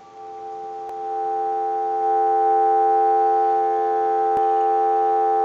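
Steady telephone dial tone from the Kellogg wall crank telephone's original receiver, a smooth two-note hum that grows louder over the first couple of seconds.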